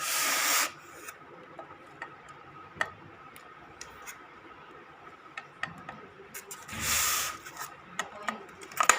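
Two short rubbing, rustling swishes about six seconds apart, with scattered light clicks and taps between: ceiling fan parts and their packaging being handled.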